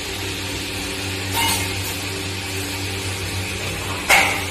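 A steady low hum, like a motor or mains hum. A short hissing swell comes about a second and a half in, and a sharper, louder burst of noise near the end.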